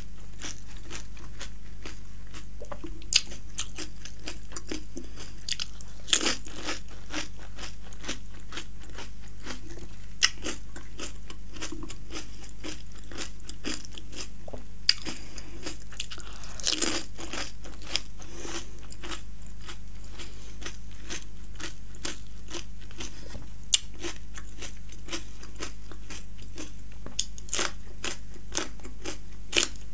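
Close-miked chewing of panipuri, the crisp hollow puri shells cracking in sharp crunches every few seconds, over a steady low hum. Near the end comes a bite into a raw green chili.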